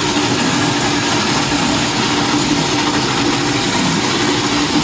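Motorized coconut grater running steadily, shredding coconut meat into shavings: a constant motor hum over a rasping hiss.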